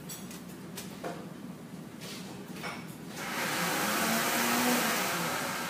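A few light clicks, then about three seconds in a steady rushing hiss swells up and becomes the loudest sound, holding to the end.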